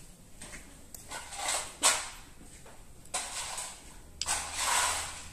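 Hands working small steel parts of a disassembled Jericho 941 FB pistol: soft rustling handling noises three times, and one sharp click about two seconds in.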